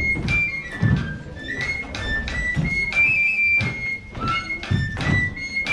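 Dance music with a high, piping flute-like melody, over repeated thuds of dancers' shoes stepping and stamping on a wooden stage floor.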